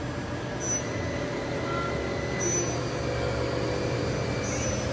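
Willis RTM100 CNC vertical machining center's spindle running at a held speed during a stepped speed run-up, a steady hum with a few steady whine tones. A faint short high chirp recurs about every two seconds.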